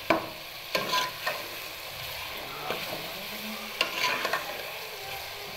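Chopped onions frying in hot oil in a metal pot, a steady sizzle, while a metal ladle stirs them and scrapes and clinks against the pot several times.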